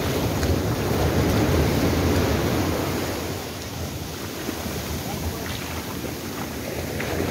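Sea surf washing up the sand and around a beached boat's hull, swelling over the first couple of seconds and easing off after about three seconds, with wind rumbling on the microphone.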